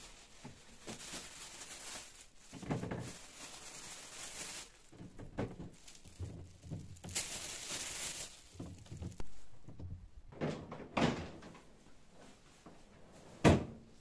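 Fruit and plastic basket organizers being handled in a refrigerator's pull-out crisper drawer: rustling and light knocks, then a sharp knock near the end as the drawer is pushed shut.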